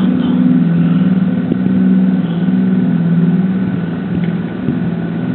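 A steady low mechanical drone, its pitch stepping up and down between two levels every second or so.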